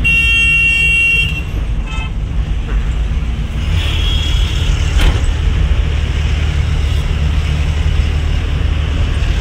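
Vehicle horn honking loudly for about a second, with a shorter, fainter horn toot about four seconds in, over the steady low rumble of a lorry's engine heard from inside the cab.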